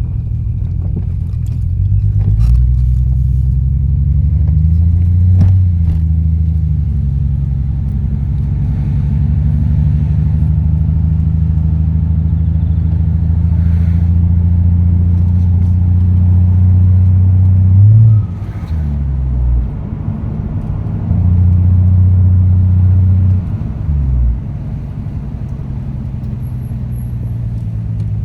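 Turbocharged Toyota Supra straight-six running through an HKS straight-through exhaust on the road: the engine note climbs and shifts through gear changes in the first few seconds, holds steady for a long stretch, then drops off sharply as the throttle lifts, comes back on, and lifts again near the end. The engine has a misfire on one cylinder that the owner has not yet cured with new plugs, leads and coils, and suspects a blocked injector.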